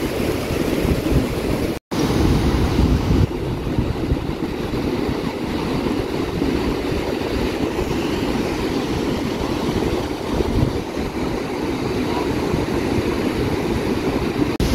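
Wind buffeting the microphone over the steady wash of ocean surf, broken by a split-second dropout about two seconds in.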